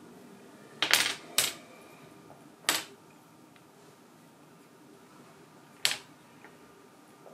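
Dominoes being knocked over by a cat walking among them, clattering onto a wooden floor in four separate sharp clacks: two close together about a second in, another a second later, and one more well into the second half.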